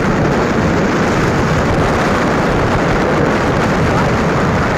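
Steady rush of wind buffeting the microphone on a moving motorbike, mixed with road noise.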